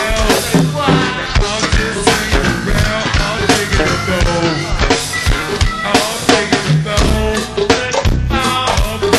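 Live go-go band music: the drum kit and percussion keep a steady groove under pitched instruments.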